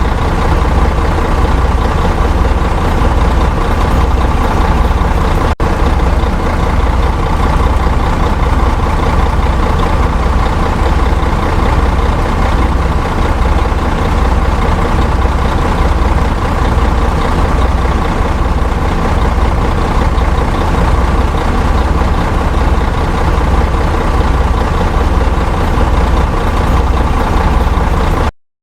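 Big bus engine idling steadily with a low, pulsing throb, broken by a momentary gap about five and a half seconds in; it cuts off suddenly near the end.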